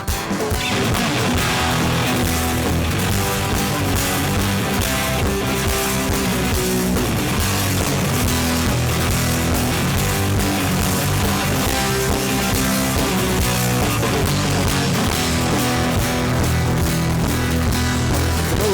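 Live rock band playing an instrumental passage: guitars over a steady bass line and drums.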